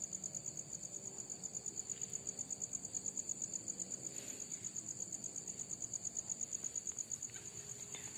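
Night insect trilling steadily: a high-pitched, pulsing song of about seven pulses a second that runs without a break.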